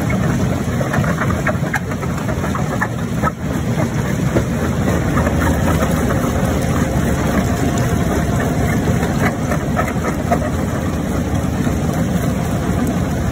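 Mobile jaw crusher running under load: a steady, heavy engine-and-machinery drone, with scattered cracks and knocks as rock is broken between the jaw plates.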